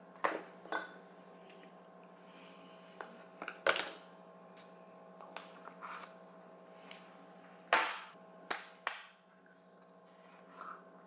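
Small plastic jars of acrylic nail powder clicking and knocking as they are handled and set down on a table, several sharp clicks at uneven gaps. Under them runs a steady electrical hum.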